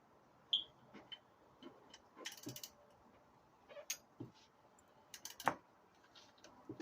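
Hand tools working on engine bracket bolts: scattered metal clicks and knocks, with a short run of quick clicks about two seconds in and one sharper knock about five and a half seconds in.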